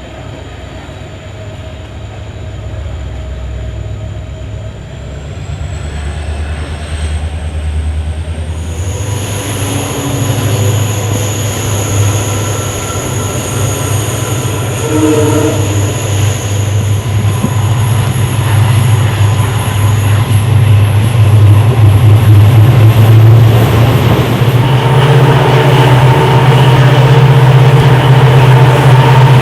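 Passenger train running on the line, a low steady drone growing steadily louder, with thin high-pitched squealing tones through the middle stretch.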